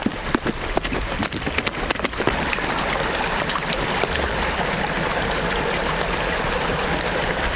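Quick irregular clicking and crunching of a donkey's hooves on a stony dirt track for about two seconds, then a steady rushing stream.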